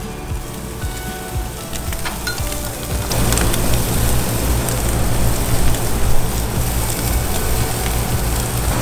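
Spiny lobster tails sizzling on a hot grill, the sizzle rising and getting louder about three seconds in, with background music underneath.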